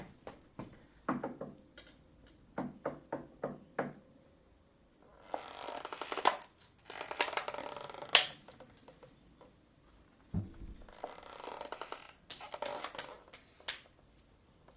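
Foley sound effects: a quick run of short taps and clicks, then several bursts of rustling, swishing noise, with one dull low thump about ten seconds in.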